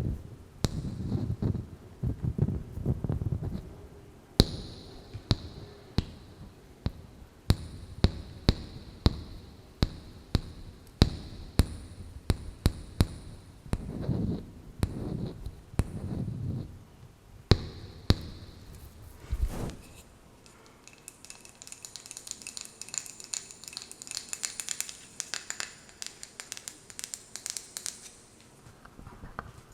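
Fingertips and nails tapping on a wooden candle-jar lid, many quick sharp taps with some duller knocks. From about twenty seconds in, a quieter, fine scratching as the nails trace across the wood.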